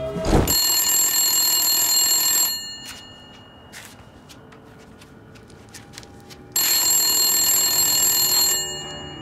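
A telephone bell rings twice, each ring about two seconds long with about four seconds between them: the cadence of an incoming call that goes unanswered. A short thump comes right at the start.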